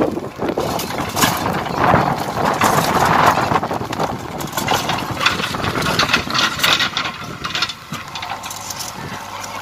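JCB backhoe loader's diesel engine running under load as its rear bucket digs into soil and drags broken concrete, with many knocks and clatter of concrete and rubble.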